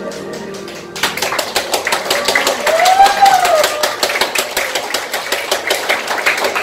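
Accompanying music ends about a second in, and the audience breaks into applause, with a voice calling out over the clapping.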